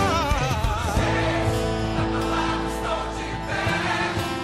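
Live gospel band music: a sung line wavers and ends about a second in, then held chords carry on steadily.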